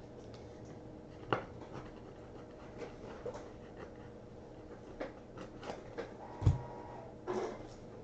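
Faint handling of trading cards: cardboard cards being slid and shuffled in the hands, with scattered light clicks, a soft thump about six and a half seconds in, and a short rubbing slide near the end.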